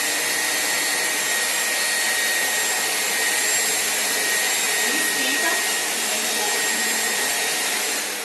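Britânia 1000 W upright vacuum cleaner running steadily, a dense rushing air noise with a high motor whine, a little noisy. It starts to wind down at the very end.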